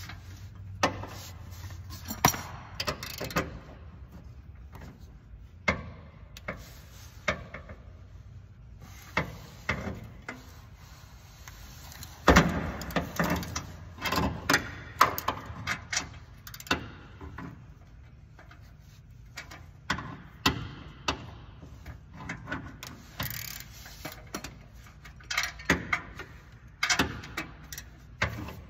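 Irregular clicks, clinks and knocks of a hand wrench and ratchet working at a stubborn nut on a Mazda Miata's exhaust header-to-downpipe joint; the nut is stripped.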